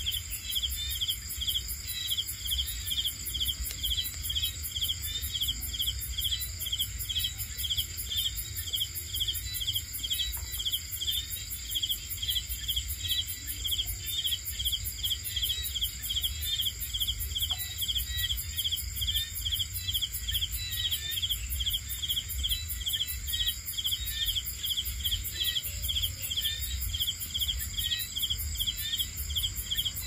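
Night insects: crickets chirping in an even, repeating rhythm over a steady high-pitched insect trill, with a low rumble underneath.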